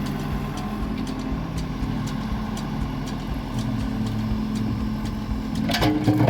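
Diesel engine of heavy digging machinery running steadily, with repeated short knocks, and a louder clattering burst near the end.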